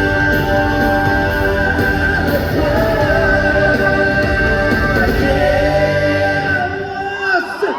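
Closing bars of a live pop-rock song, electric guitar and band with held sung notes, ending about seven and a half seconds in.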